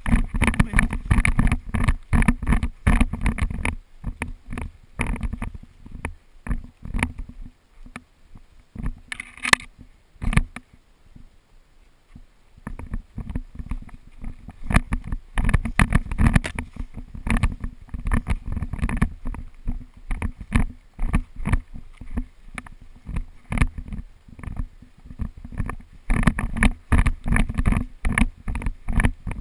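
Irregular rustling and knocking right on the microphone, thinning out for a few seconds around the middle.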